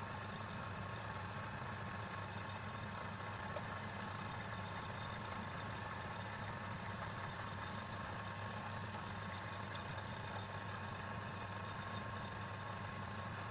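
Woodturning lathe's electric motor running at a steady speed, a constant hum that does not change.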